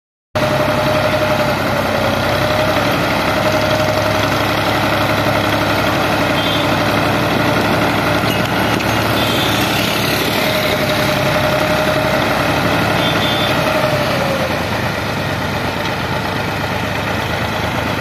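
Al-Ghazi tractor's diesel engine running steadily while its hydraulics raise a tipping trolley loaded with sand. A wavering whine rides on the engine until about three-quarters of the way through, where it fades and the sound eases a little.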